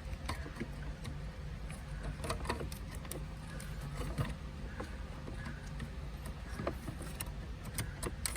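Plastic wiring-harness connectors and cables clicking and rattling as they are handled and plugged together, scattered light clicks throughout, over a steady low hum.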